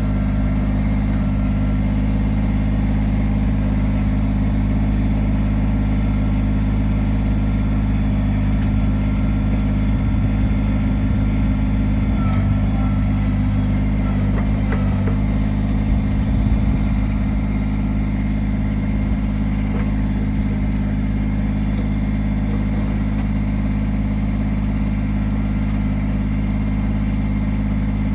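Kubota backhoe's diesel engine running at a steady pace, with a few short knocks about halfway through as the machine works.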